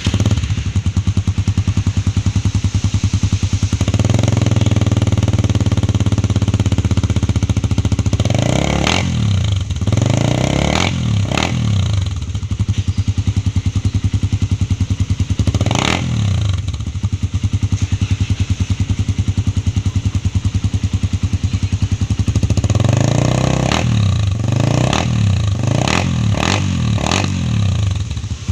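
Suzuki Raider 150 single-cylinder four-stroke engine through a loud aftermarket exhaust, idling and being revved with short throttle blips: a few spaced revs early on, one sharp blip in the middle, and a quick run of blips near the end.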